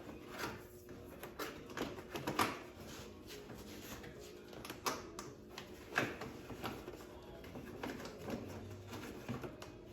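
Irregular light clicks, taps and rattles of a replacement rear brake cable being worked through its plastic retaining clips on an ATV frame.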